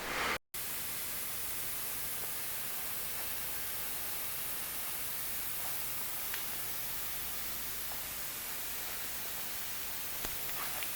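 Steady hiss of recording noise, cut off by a brief dropout about half a second in, with a couple of faint ticks.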